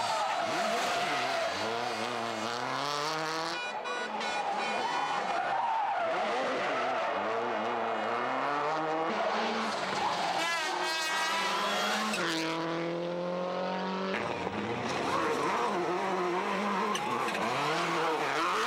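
Subaru Impreza WRC rally cars' turbocharged flat-four engines revving hard through the gears at speed. The pitch climbs and drops back at each shift, over several passes, with one long steep climb about two-thirds of the way in.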